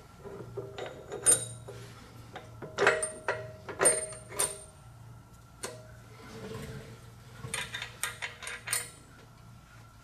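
Steel bolt and spacer clinking and scraping against the steel pin holes of a backhoe thumb and a hydraulic cylinder's rod connector as the bolt is worked through by hand: a series of light metal clinks with a short ring, a few around the middle and a quick cluster near the end.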